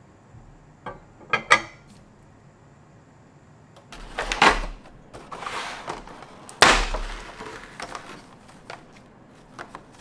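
A glass jar set down with a few sharp clicks, then a clear plastic clamshell fruit container crackling loudly as it is opened and handled, twice, with lighter rustles and clicks of the plastic and foam-netted peaches after.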